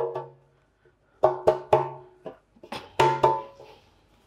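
A metal baking tin being knocked with the hand to spread the flour dusted inside it: sharp knocks, each with a short metallic ring. There is one knock at the start, then quick runs of two or three about a quarter-second apart, about a second in and again about three seconds in.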